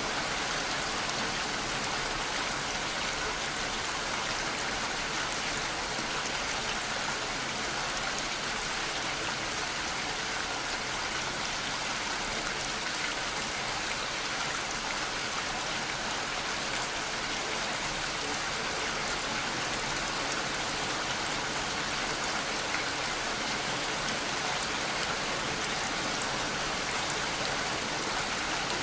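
Steady, even rain falling, with fine scattered drop patter over a constant hiss.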